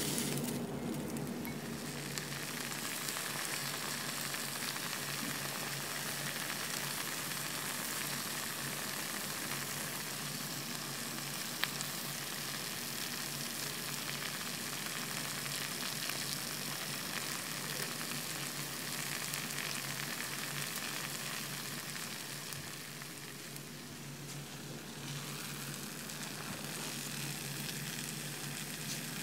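Rice dish sizzling in a hot earthenware pot (ttukbaegi), a steady hiss that eases off briefly about three-quarters of the way through.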